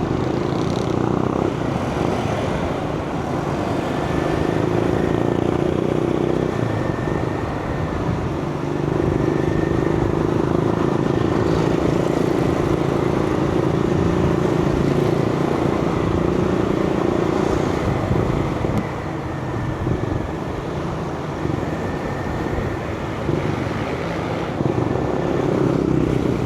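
Motorcycle engine running at a steady cruising speed, with wind and road noise. The engine note eases off briefly about eight seconds in and again for a few seconds around twenty seconds in.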